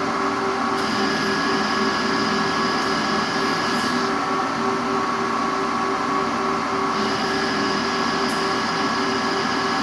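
Machine tool running steadily with a constant hum. A higher-pitched cutting noise comes in about a second in, stops around four seconds, and starts again about seven seconds in, as the tool engages the metal.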